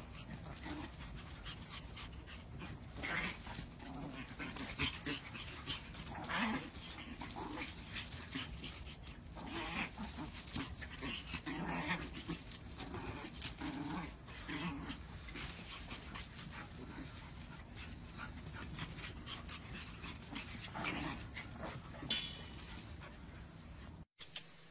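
Two small dogs, Chihuahua puppies, play-fighting, with short dog noises coming over and over at uneven intervals.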